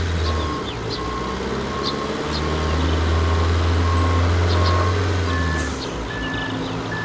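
Background music: an even run of short electronic beeps, about one and a half a second, over deep held bass notes; the beeps jump to a higher pitch about five seconds in.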